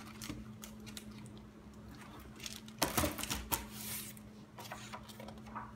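Pages of a picture book being handled and turned, a papery rustling, busiest about three seconds in as a page is flipped over.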